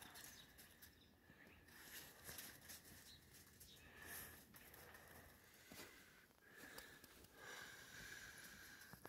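Near silence, with faint sniffing and soft footsteps of a dog moving through snow.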